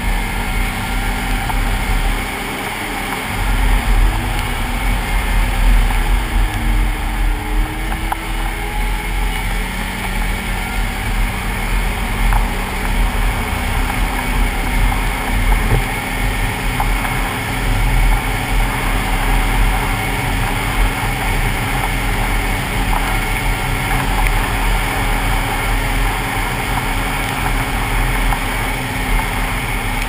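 Snowmobile engine running under way along a packed snow trail, heard close up with wind on the microphone. The engine pitch dips and rises a few seconds in, then holds steady.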